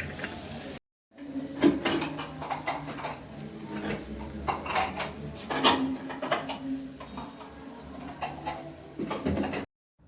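Dishes and utensils clinking and knocking in a string of sharp, irregular strikes, broken by a brief dead-silent gap near the start and another just before the end.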